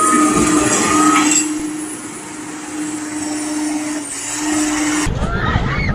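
Heavy machinery running loudly with a steady whining tone. About five seconds in it cuts off abruptly and people's voices take over.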